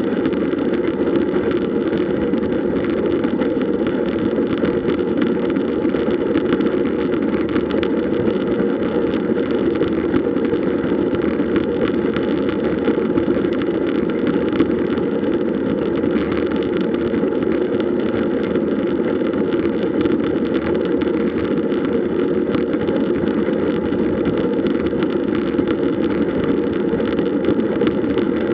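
Steady, muffled rushing of wind and road noise on the microphone while riding a road bike, with no change through the stretch.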